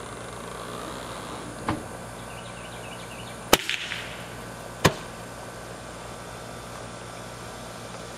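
Homemade dual-chamber PVC combustion potato cannon, fuelled with spray paint and lit by a grill igniter, firing: a sharp crack about two seconds in, then two loud bangs about a second and a half apart, the first followed by a brief rush.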